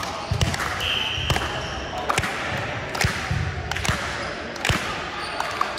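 Volleyballs being hit and bouncing on a gym floor: irregular sharp thumps, some in quick pairs, echoing in the hall. A steady high tone lasts about a second, starting just under a second in.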